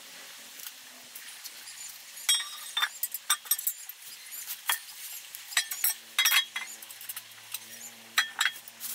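Small metal parts clinking and knocking together as they are handled: irregular sharp clinks, some with a short metallic ring.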